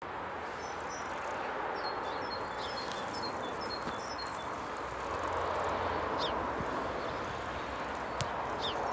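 Steady wind noise, with small birds chirping: a scatter of quick high chirps in the first half and a few sliding calls near the end.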